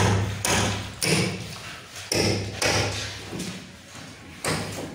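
Heavy knocks, about five at uneven intervals, each dying away briefly in the bare tiled room.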